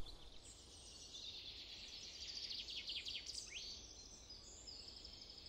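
Faint birdsong: small birds giving high, rapid twittering trills and short chirps over a soft, steady background hiss of woodland ambience.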